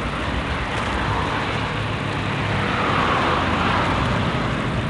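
Road traffic noise, with a motor vehicle passing that swells loudest about three seconds in.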